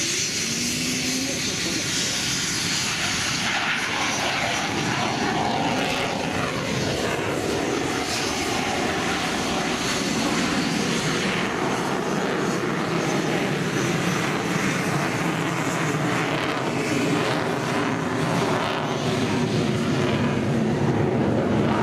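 A MiG-29's twin Klimov RD-33 turbofan jet engines at takeoff power as the fighter rolls down the runway and climbs away. It is a loud, steady rush of jet noise that swells a little toward the end.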